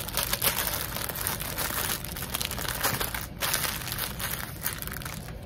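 Small clear plastic bag of diamond-painting drills crinkling as it is handled, busiest for the first three seconds and then quieter as it is smoothed flat on the table.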